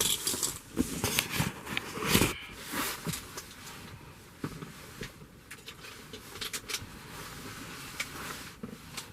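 Handling noises: a string of small clicks, knocks and rustles, busiest in the first few seconds and sparser after.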